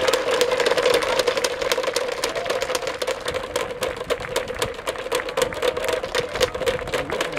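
Spectators in the stand applauding in fast, dense claps as the team lines up in front of them.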